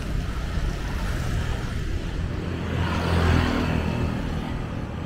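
Road traffic: motor vehicle engines running steadily, with one vehicle passing close and growing loudest about three seconds in.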